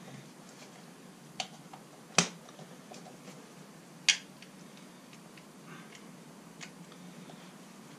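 A few sharp plastic clicks as a screwdriver works a screw that won't line up into the plastic cover of a caravan hook-up plug. The loudest click comes about two seconds in.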